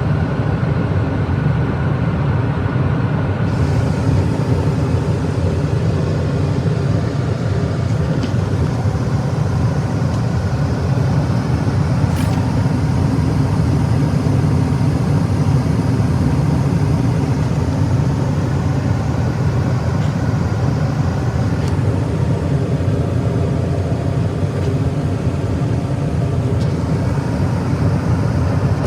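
Comfortmaker gas furnace running: a steady, loud, low rumble with a faint hum of steady tones above it, unchanging throughout.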